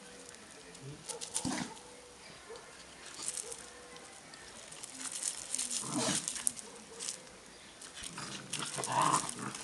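Puppies play-fighting on gravel and grass: scattered scuffling and pattering of paws, with brief louder moments around six seconds and near the end.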